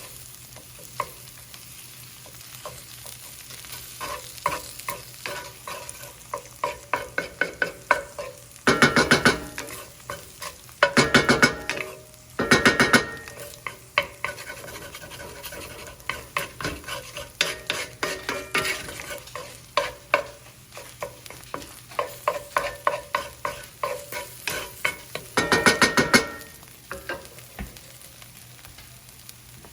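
Pork fried rice frying in a pan while being stirred: a utensil scraping and tapping against the pan in quick repeated strokes, with louder runs of fast scraping about nine seconds in, from eleven to thirteen seconds, and again around twenty-six seconds.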